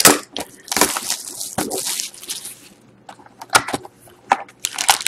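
Cardboard trading-card box being handled and its lid opened: cardboard rustling and scraping for a couple of seconds, then a quieter stretch with a few sharp snaps, and more rustling near the end.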